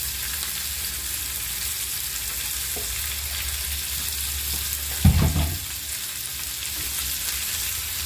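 Pieces of liver frying with onions in hot oil in a pan: a steady sizzle, with one brief louder sound about five seconds in.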